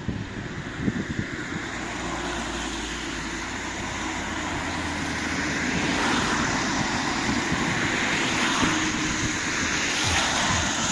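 Road traffic on a bridge: cars driving past, their tyre and engine noise swelling as one goes by about halfway through and again near the end, with wind buffeting the microphone.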